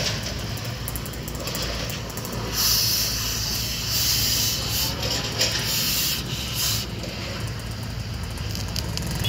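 Construction machinery engine running with a steady low hum, with several short bursts of hissing of about a second each.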